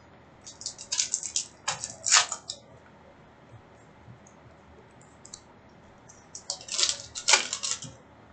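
Hockey trading cards and packs being handled: two spells of quick crisp crackling and clicking, one about a second in and another near the end.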